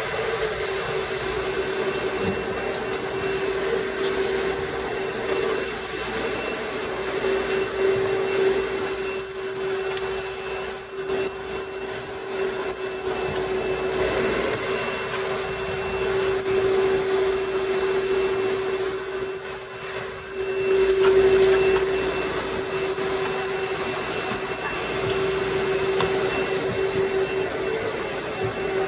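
An electric motor running steadily with a constant whine over a rushing, vacuum-like noise. It dips briefly twice and swells louder about two-thirds of the way through.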